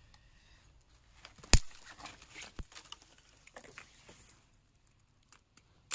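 Dry twigs and leaf litter rustling and crackling as they are handled for a campfire, with one sharp crack about a second and a half in and a smaller one a second later.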